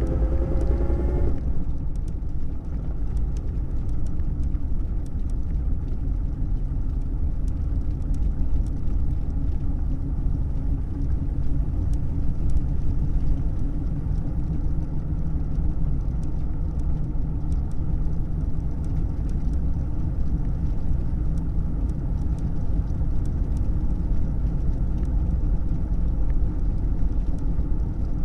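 A 1937 Plymouth's flathead straight-six under way, heard from inside the car. The engine note rises in pitch and drops away about a second in, then settles into a steady low rumble as the car drives on.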